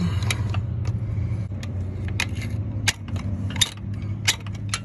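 Steel pry bar clinking and knocking against a seized CV axle at the transmission as it is levered, in irregular sharp metal clinks, over a steady low hum.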